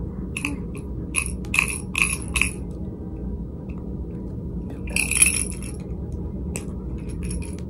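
Light metallic jingling, short clinks in a few quick clusters, like a small toy rattle or trinket being shaken, over a steady low hum from the running ceiling fan.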